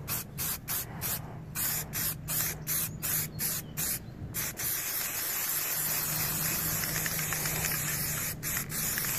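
Aerosol can of top-coat spray paint hissing, first in short quick bursts about three a second, then in one continuous spray of about four seconds, then in short bursts again near the end.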